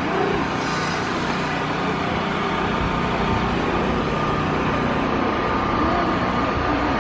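Steady city traffic noise: a continuous hum and hiss of cars and buses, with a few short rising-and-falling calls.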